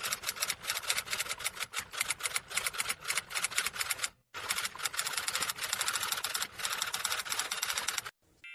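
Rapid, even clicking, about eight clicks a second, with a brief break about four seconds in; it stops about eight seconds in.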